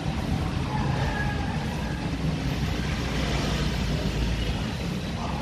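Steady low rumble of road traffic, swelling slightly around the middle as a vehicle passes.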